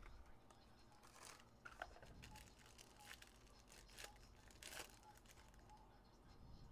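Faint rustling, crinkling and tearing of trading-card packaging, a cardboard hobby box and its packs being opened and handled, in short irregular crackles with a few sharp ticks, the loudest about four and a half seconds in.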